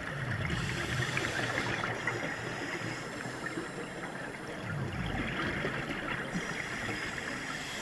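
Underwater sound heard through a GoPro housing on a scuba dive: a steady, dense crackle, with a diver's exhaled regulator bubbles rumbling twice, about a second in and again about five seconds in.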